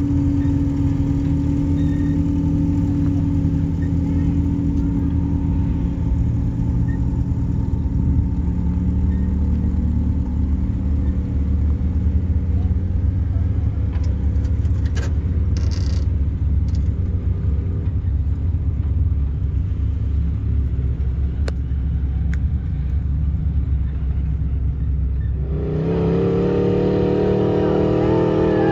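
Off-road buggy engine running steadily under load as it climbs a sand hill. About 26 seconds in a louder engine rev comes in, rising and falling in pitch.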